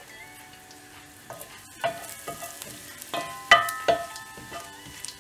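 Whole spices (fennel seeds, cloves and cinnamon) sizzling in hot oil in a nonstick pot, stirred with a wooden spatula that knocks against the pot a few times with short ringing clinks.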